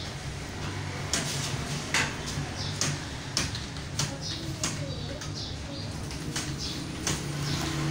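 Computer keyboard keys clacking in an irregular run as someone types a speed test, over a low steady hum.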